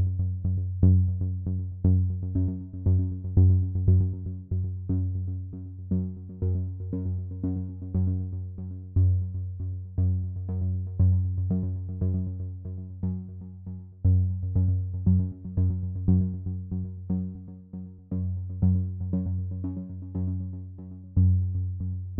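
Background music: quick repeated synthesizer notes over a deep bass.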